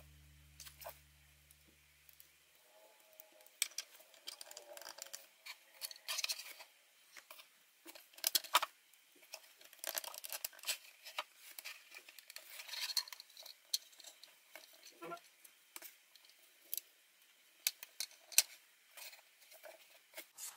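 Plastic LEGO pieces clicking and tapping as a small AT-ST walker model is handled and its hinged legs are posed, with its feet set down on a studded baseplate. The sharp, irregular clicks come singly and in quick clusters, with light rubbing of fingers on plastic between them.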